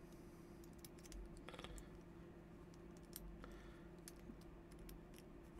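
Faint scattered clicks and brief light rubbing as a G-Shock watch and its paracord strap are handled while the strap is being fitted, over a steady low hum.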